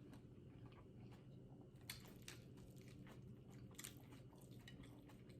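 Faint chewing of a BLT sandwich, with a few soft crunches and mouth clicks around two and four seconds in.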